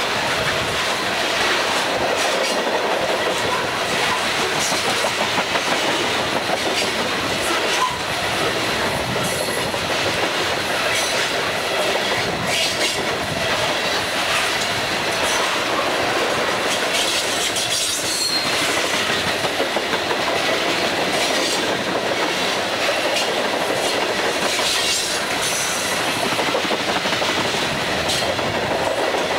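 Freight train of CSX coal hopper cars rolling past close by: steady wheel-on-rail rumble with clickety-clack of wheels over rail joints, and a few brief high-pitched wheel squeals.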